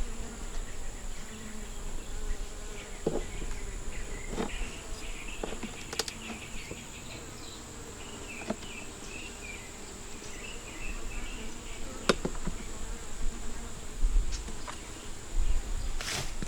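Honeybees buzzing steadily around an open hive, with a few light clicks and knocks scattered through.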